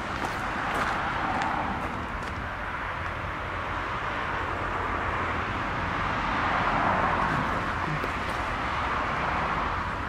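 Steady outdoor hiss with no distinct event, swelling gently about a second in and again around seven seconds in.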